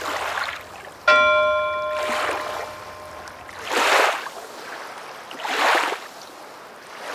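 A bell struck once about a second in, ringing and slowly fading, over wave sounds that wash in and out about every two seconds.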